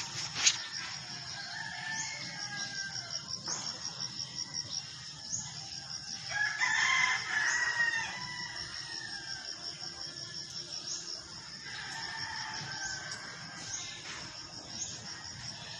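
A rooster crowing, loudest about seven seconds in, with fainter crows near the start and about twelve seconds in, over a steady high pulsing insect trill. A single sharp knock just after the start.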